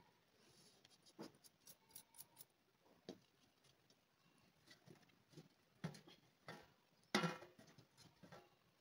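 Metal cookware being handled: scattered light clicks and knocks, then about seven seconds in a louder clatter with a brief metallic ring as a metal pot is set onto the clay stove.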